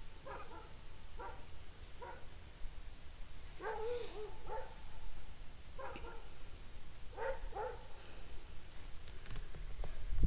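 A dog barking, about seven short barks spread through, with one longer, wavering bark about four seconds in.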